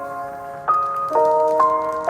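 Lo-fi background music: bell-like keyboard chords, a new chord struck about every half second.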